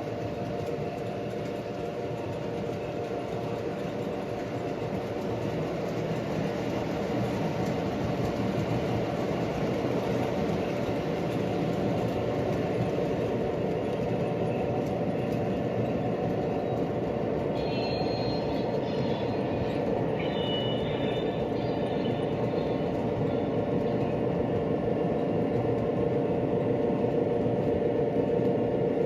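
Model train running on a layout loop: a steady motor hum and wheel rumble that slowly grows louder, with a brief high wheel squeal a little past the middle.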